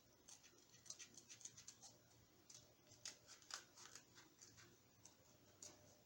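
Scissors cutting cardboard, faint: irregular runs of short, crisp snips.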